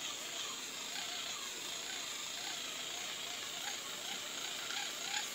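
Battery-powered facial spin brush running steadily, its small motor whirring as the brush head scrubs over the face. From about halfway through, the whir wavers in pitch about three times a second.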